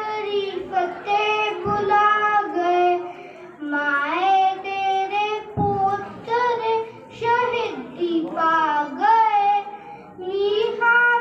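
A young boy singing solo, a melody of long held notes that slide between pitches, phrase after phrase.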